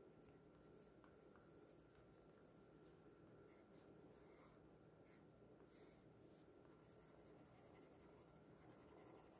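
Faint scratching of a Derwent Graphitint pencil on sketchbook paper as a colour name is written out, then quicker, close-set back-and-forth strokes toward the end as a small swatch is shaded in.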